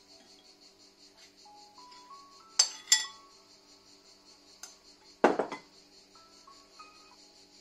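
A metal spoon clinks twice against a glazed ceramic dish while chicken filling is scooped out, then a louder clatter of spoon and dish about five seconds in. Soft background music with a stepping melody plays underneath.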